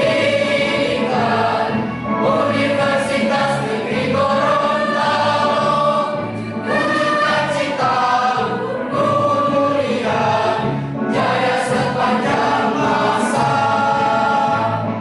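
Mixed choir singing sustained phrases together, with brief breaks between phrases.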